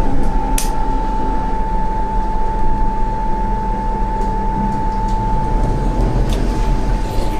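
A Toshiba Elemate New Luminous elevator's announcement speaker giving a steady, unbroken high-pitched tone like a ship's horn ('puu'). This abnormal noise is peculiar to this model's announcement system. A steady low rumble lies under it, with a sharp click about half a second in.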